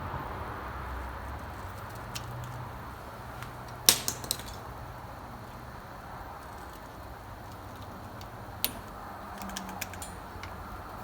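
Hand tools and metal parts being handled, giving a few sharp clicks and clinks: three close together about four seconds in, the loudest, then a single click later and some lighter ticks. A low steady hum sits underneath and fades about halfway through.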